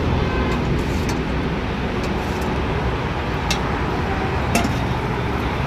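Steady city road traffic rumble from passing vehicles, with a few short sharp clinks in the middle.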